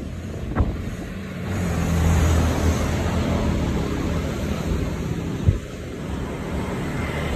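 Street traffic: a motor vehicle's engine passing, swelling about a second and a half in and fading again by about five seconds, over steady wind noise on the microphone.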